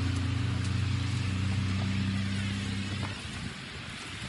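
A vehicle engine running steadily over a broad hiss, the engine hum fading away about three seconds in.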